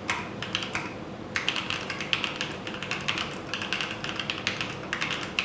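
Typing on an upgraded Keychron C1 mechanical keyboard: a fast, steady run of key clacks, with a brief pause about a second in.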